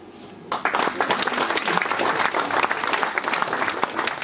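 Audience applauding, many hands clapping, starting suddenly about half a second in after a brief hush.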